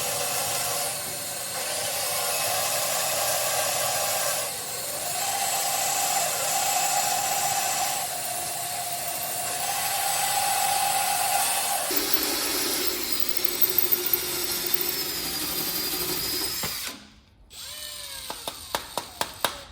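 Makita electric drill running as it drills out a broken bolt, with the feed pressure eased off and put back on a few times. The tone changes about twelve seconds in, and the drill stops suddenly near seventeen seconds, followed by a few light clicks and knocks.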